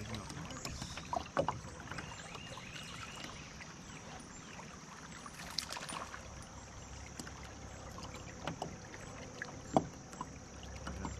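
River water lapping against a kayak's hull, with scattered light knocks and clicks; one sharper knock comes near the end.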